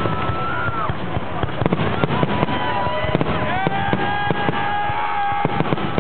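Fireworks finale heard from several hundred yards away: a rapid, irregular barrage of bangs and crackles. Over it come several long, steady whistling tones that drop in pitch as they end.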